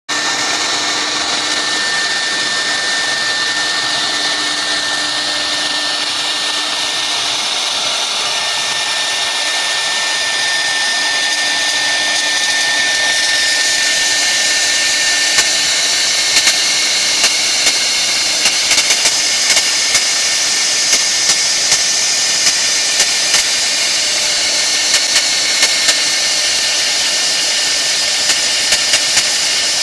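CNC router spindle running steadily at high speed while its bit carves a relief into a wood panel: a steady high whine over the hiss of cutting. Sharp ticks come scattered through the second half.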